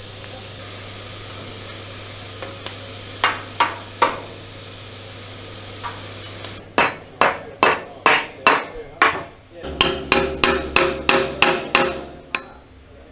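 Hammer striking a homemade slotted tool set against a seized slotted bolt in an M3 Grant tank's steel hull, metal on metal. A few separate blows come first, then a run of about seventeen strikes over the second half, quickening toward the end.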